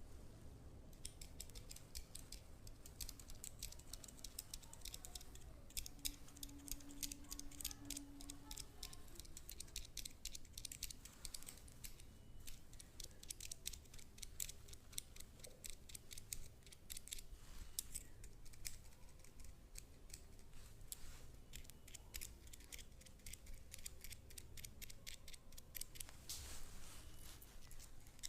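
Rapid, irregular crisp clicks and scratches close to the microphone, from hands and a massage instrument working on skin and hair. A brief low steady hum sounds about six seconds in and lasts a couple of seconds.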